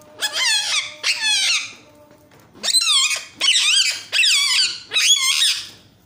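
Indian ringneck parakeet calling: six loud, wavering calls, two together, then after a short pause four more in quick succession.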